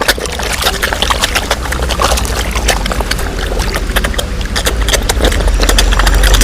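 Koi fish splashing at a pond's surface: a quick, irregular patter of small splashes and slurps over a steady low rumble.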